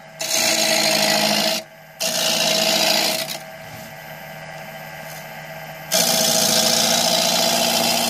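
Wood lathe spinning a spindle while a hand-held turning tool cuts into it, throwing off shavings. There are three loud cutting passes: two of about a second and a half each, then a longer one starting about six seconds in. Between cuts the lathe runs on with a steady hum.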